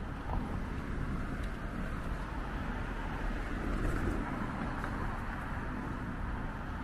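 Steady city street traffic noise heard from a moving bicycle, with a low rumble of wind on the microphone.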